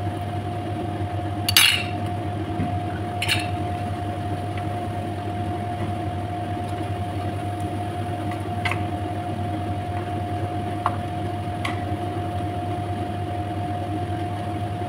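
Meat being stirred in a metal frying pan, with four sharp clinks of utensils against the pan, the loudest about a second and a half in, over a steady hum.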